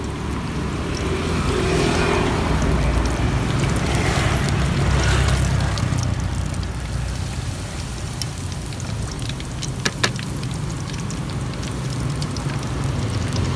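Hot cooking oil sizzling and crackling in a wok as egg fries on bamboo skewers for telur gulung, over a low rumble. There is a sharp click about ten seconds in.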